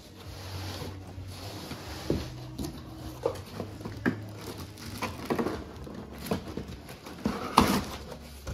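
Cardboard box and plastic bag being handled: scattered rustles, scrapes and knocks, with the loudest knock about seven and a half seconds in.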